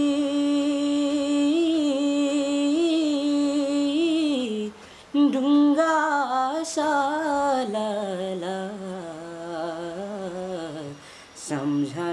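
A teenage boy singing a Nepali folk song unaccompanied: a long held note with a wavering vibrato, a short break for breath about five seconds in, then a phrase of ornamented runs falling in pitch, and another short break near the end.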